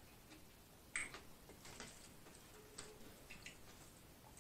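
Quiet eating sounds: a handful of light clicks of a metal fork against the plate and bowl, the clearest about a second in and several fainter ones after.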